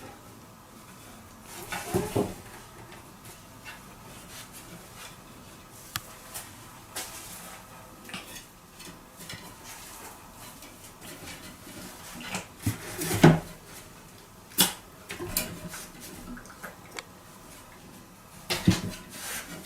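Household objects clattering and knocking, like dishes and cupboard or drawer fittings being handled, in scattered sharp clicks with louder clusters of clatter near the start, about two-thirds of the way through and near the end.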